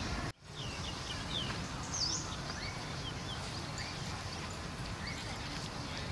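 Outdoor ambience: a steady low rumbling noise with scattered short, high bird chirps, several close together about a second in. The sound drops out for an instant about a third of a second in.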